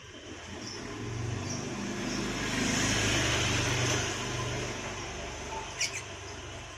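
A motor vehicle passing by, its engine hum and noise swelling to a peak about three seconds in and then fading, with a short sharp click near the end.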